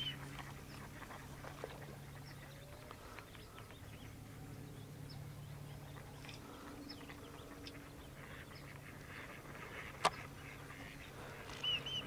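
Mallard ducks quacking faintly, with a few short bird chirps, over a low steady hum. A single sharp click about ten seconds in.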